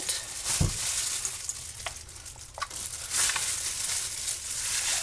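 Gloved hands squishing and rubbing raw chicken in a bowl: wet squelching with the crinkle of thin plastic gloves, a soft thump about half a second in and a couple of small clicks. The chicken is being washed with salt.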